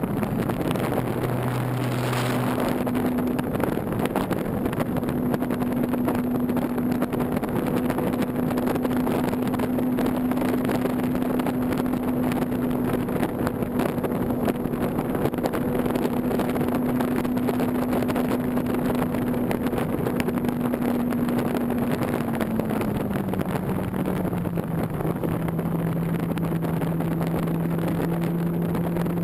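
Electric motor and spinning propeller of a Parkzone Radian Pro RC glider, a steady hum over wind rushing past the camera. About three quarters of the way through, the hum slides down to a lower steady pitch.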